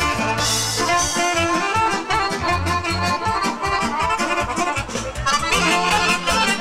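Live folk band playing an instrumental passage led by accordion, over a steady pulsing bass beat.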